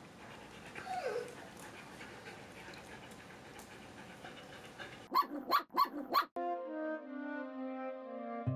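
A dog gives a short falling whine about a second in, then barks four times in quick succession just after five seconds. Music begins right after the barks.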